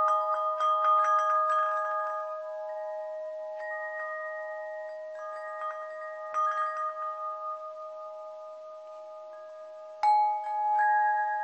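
Metal chimes struck in irregular clusters, each note ringing on, over one steady held tone. The strikes thin out in the middle, then a fresh flurry comes about ten seconds in.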